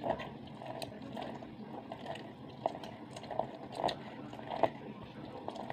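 A lemon half being twisted back and forth by hand on a red plastic citrus reamer. Its rind and pulp rub and squish against the ridged plastic cone in irregular strokes, with a few small clicks.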